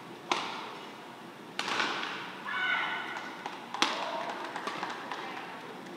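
Badminton racket strikes on a shuttlecock during a rally: three sharp hits, about a second apart and then two seconds apart, each echoing in a large hall, with a brief high squeak between the second and third.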